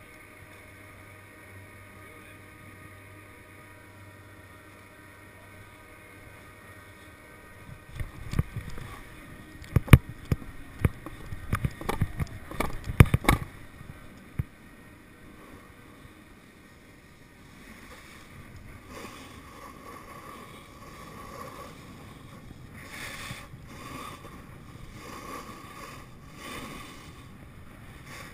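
A quiet steady hum, then a cluster of sharp knocks and clicks lasting several seconds. From past the middle, a snowboard scrapes and slides over snow, with wind rushing on the microphone.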